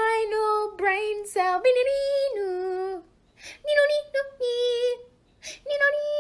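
A high voice singing a simple melody in held notes that step up and down, breaking off briefly about three seconds in and again just after five seconds.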